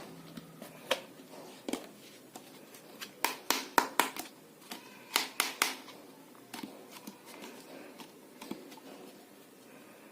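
Irregular clicks and taps of objects being handled: a few scattered ones, then a quick cluster of sharper clicks in the middle, then a few fainter ones.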